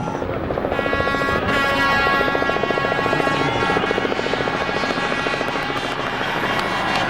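A motor running at a steady speed: a fast, even throb under a high, level whine.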